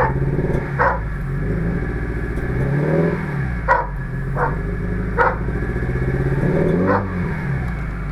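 Subaru Impreza WRX STI's turbocharged flat-four idling, its pitch rising and falling a little about three times. About six short sharp sounds come over the engine at irregular intervals.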